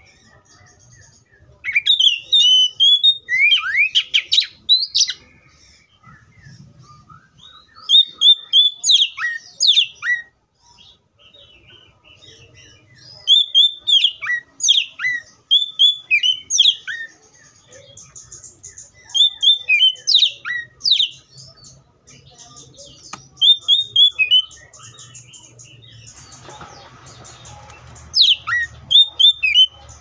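Oriental magpie-robin singing in about six bursts of song, each a few seconds long with short pauses between them. The song is made of rapid, clear whistled notes and quick downward-sweeping slurs.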